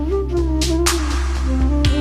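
Background music: a held melody over a steady bass, with regular percussion hits.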